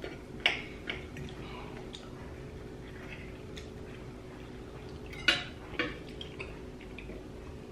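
Knives and forks clinking and scraping against dinner plates as food is cut, with a few sharp clinks, the loudest about half a second in and twice around five seconds in.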